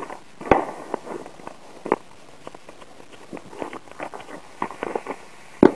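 Fireworks crackling with irregular sharp pops of varying strength over a low hiss; the loudest pop comes near the end.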